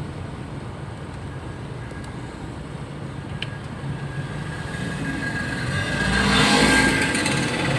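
Car engine running steadily, with a louder rush of a vehicle going past about six seconds in.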